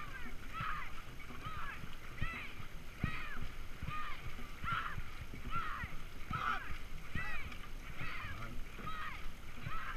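Geese honking over and over, about two calls a second, over the low splash and thud of dragon boat paddle strokes in the water.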